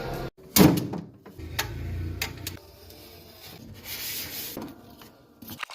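Handling noises while unboxing a refrigerator: rubbing and scraping with a few sharp knocks, the loudest about half a second in.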